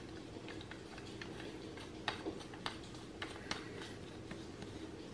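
Scattered faint clicks and taps from a Force FX Elite lightsaber hilt being handled and turned over, over a steady low hum.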